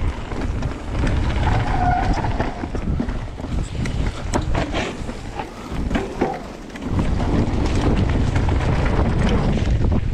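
Wind rushing and buffeting over the microphone of a mountain bike ridden down a trail, with scattered rattles and knocks from the bike over rough ground in the first half. Near the end the wind rumble becomes steady and heavier.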